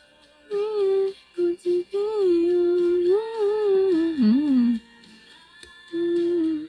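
A woman humming a slow tune in a few phrases, with short pauses between them. There is a long phrase in the middle that dips and wavers down at its end.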